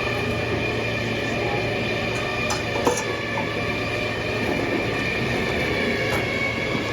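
Electric trailer winch running steadily with a high whine as it pulls a car up onto the trailer, with a couple of short clanks about two and a half and three seconds in.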